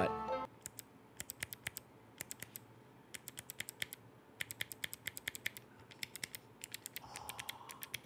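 Clicky mechanical key switches on a Work Louder Creator Micro keyboard being typed in quick runs of sharp clicks, with short pauses between runs and a longer pause of about a second midway.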